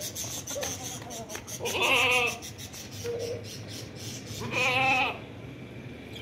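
Goat bleating twice, each a wavering call about half a second long, with a couple of fainter short calls between.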